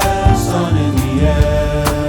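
Background song with singing over a steady beat.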